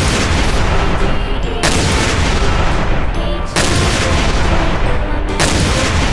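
Explosion sound effects, four blasts about two seconds apart, each a sudden loud burst that rumbles on, laid over background music.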